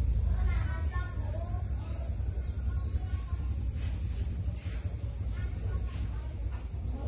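Insect trilling steadily at a high pitch, breaking off for about a second around five seconds in, over a low steady hum.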